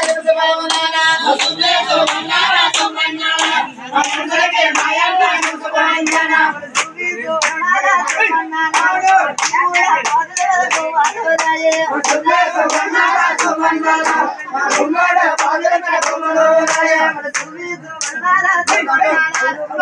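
Men's voices singing a Telugu Golla folk ballad over a steady beat of hand claps, about two to three claps a second.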